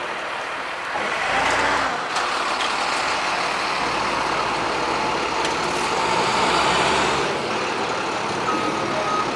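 Flatbed tow truck running as it drives slowly across the lot carrying a race car. Near the end its reversing alarm starts beeping.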